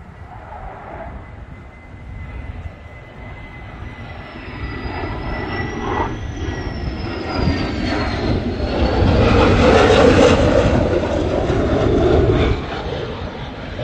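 Fighter jet flying past, its engine noise building to a loud peak about ten seconds in, then dropping away suddenly near the end. A high engine whine rises and then falls in pitch midway through.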